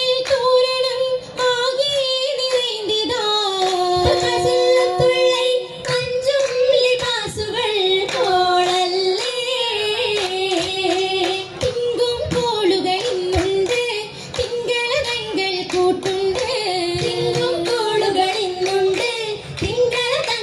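Oppana song: women's voices singing a Mappila melody together, with the dancers' hand claps keeping time.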